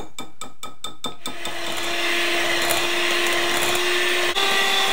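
A whisk clicks quickly against a glass bowl, about six strokes a second. About a second in, an electric hand mixer starts and runs steadily, beating batter in the bowl. Near the end it briefly dips and then runs at a slightly higher pitch.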